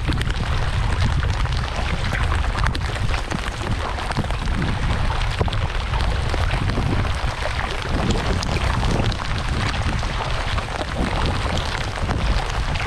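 Steady rain falling, a dense hiss of many small drop ticks over a steady low rumble.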